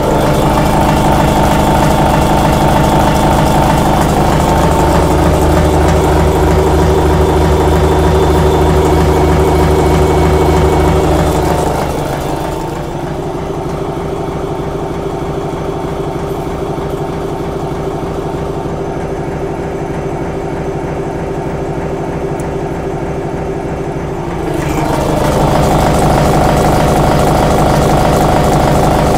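Large insert face mill on a CNC mill taking a heavy, .300-inch-deep cut in 500 Brinell hardened steel plate: a loud, steady machining hum with a fast, even rattle of the inserts striking the steel. About twelve seconds in it turns quieter and duller, and it comes back to full loudness about twelve seconds later.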